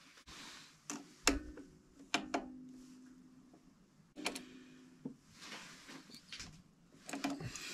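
A handful of light metal clicks and clinks, a few of them ringing briefly, as a caliper is opened and set against the turned metal workpiece held in the lathe chuck to measure its diameter.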